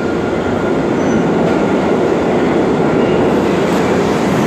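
Subway train running on the tracks: a loud, steady rumble of the cars and wheels on the rails.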